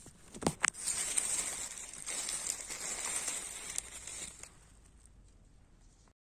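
Dry leaf litter rustling and crackling as a hand pushes through the leaves and grips a porcino mushroom, after two sharp clicks about half a second in. The rustle fades after about four and a half seconds.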